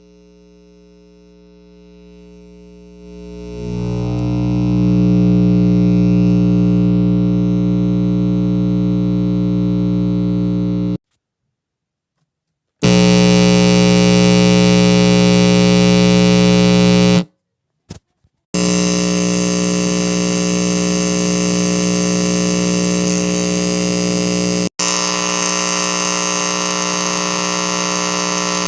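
Electrical hum and buzz with hiss from a loose auxiliary audio cable. It swells up over the first few seconds, then cuts out and back in several times, with a brief crackle during one gap. The later sections are hissier and brighter.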